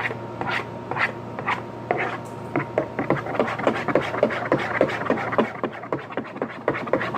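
A spoon stirring glue in a bowl, knocking and scraping against the bowl in quick strokes, several a second from about two and a half seconds in.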